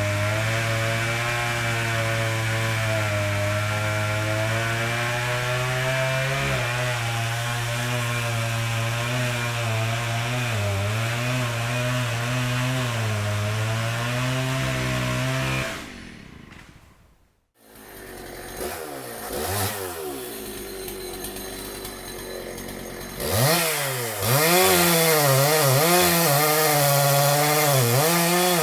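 Chainsaw running steadily, its motor note wavering slightly, then dying away about 16 seconds in. After a brief near silence another chainsaw starts quietly and from about 23 seconds in runs louder, its pitch repeatedly dipping and rising as if cutting wood.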